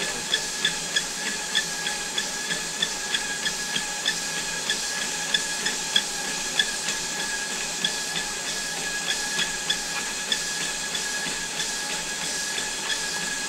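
Running treadmill: a steady motor whine and belt hiss, with light taps about three times a second from a dog's paws walking on the moving belt.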